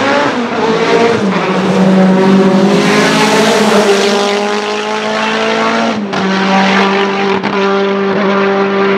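Race car engine running hard at high, nearly steady revs, with a short break about six seconds in.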